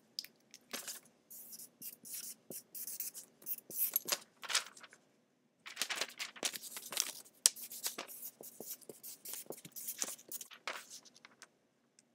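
A sheet of paper handled close to the microphone: a run of short, irregular scratching and rustling strokes, with a pause about five seconds in.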